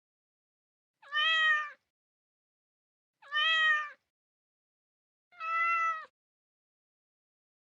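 Domestic cat meowing three times, each meow a short call of under a second, evenly spaced about two seconds apart with silence between.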